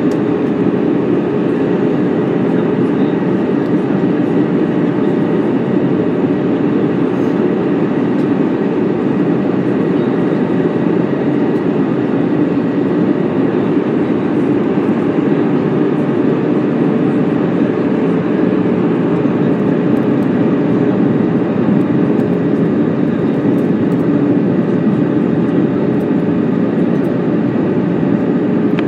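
Steady cabin noise inside an easyJet Airbus A320 in flight, heard from a window seat over the wing: the even rush of engines and airflow, deep and unbroken, with a faint steady hum on top.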